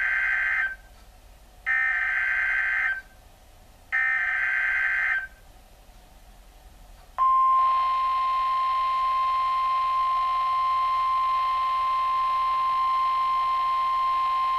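Emergency Alert System tornado warning broadcast: the end of one data burst and then two more, each about a second long with short gaps (the SAME header tones), then about seven seconds in a single long steady alert tone starts and holds.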